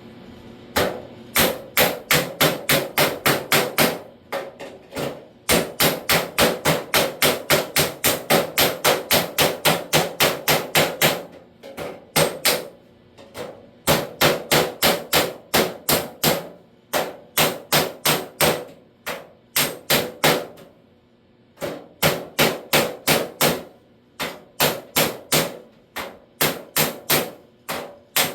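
Body hammer striking sheet steel backed by a flat dolly, folding over the edge of a lower door skin. The blows come in quick runs of about four to five a second, with short pauses between runs, and each one rings.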